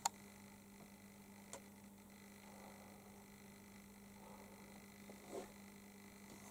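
Near silence with a steady low hum, broken by a sharp click right at the start and a fainter click about a second and a half in.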